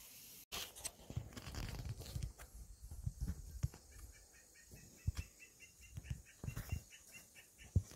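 Handheld phone handling noise: irregular low thumps and rubbing as fingers move over the phone near the lens. From about two and a half seconds in, a bird calls in a fast run of short high chirps, about five a second, for roughly four seconds.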